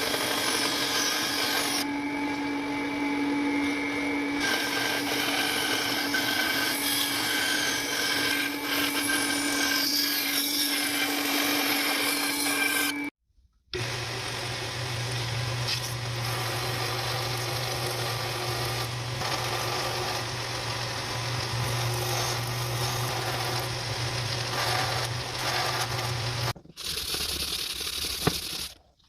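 Electric power tool motor running steadily in two spells, its hum lower in the second, as steel is worked.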